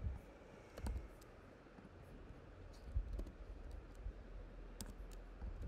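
Scattered single clicks from a computer mouse and keyboard while code is copied and pasted, a few separate clicks spread out, over a faint low room rumble.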